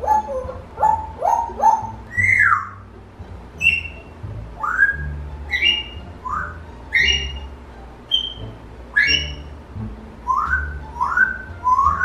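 African grey parrot whistling: a string of short whistles, most of them quick upward slides, with a longer falling whistle about two seconds in. They come fast at first, then about one a second.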